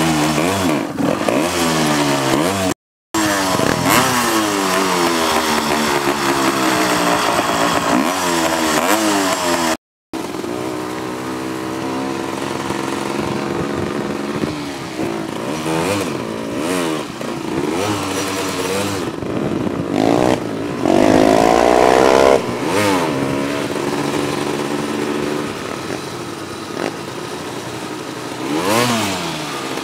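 Four-wheeler (ATV) engine running hard, its pitch climbing and dropping repeatedly as the throttle is worked, with a louder burst of revving about twenty-one seconds in. The sound cuts out briefly twice, about three and ten seconds in.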